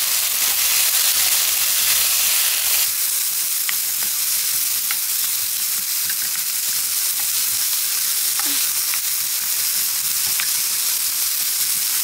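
Sliced potatoes, carrots and pork sizzling steadily as they are stir-fried in an oiled nonstick wok, with a few light clicks and scrapes of the spatula against the pan.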